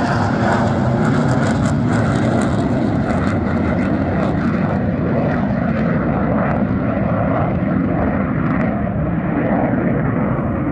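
McDonnell Douglas F-15C Eagle's twin Pratt & Whitney F100 turbofans at takeoff power as the jet climbs away after liftoff: a loud, steady jet rush. Its high hiss dies away over the second half as the jet recedes.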